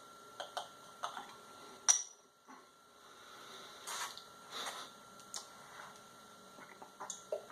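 Small clicks and knocks from handling a glass root beer bottle while it is drunk from, with one sharp clink about two seconds in.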